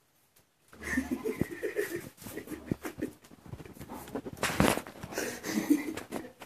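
A dog panting and chewing at close range, starting after a short pause: irregular clicks and rustles with heavy breathing, and a louder burst a little past the middle.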